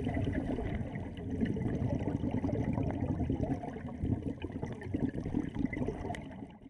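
Underwater sound picked up through a camera's waterproof housing: a muffled, crackling rush of bubbles from scuba divers exhaling through their regulators. It fades out near the end.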